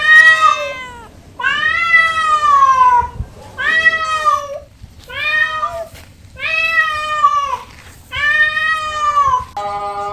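Cat meowing six times in a row, each meow about a second long and arching up then down in pitch, with a brief steady note near the end.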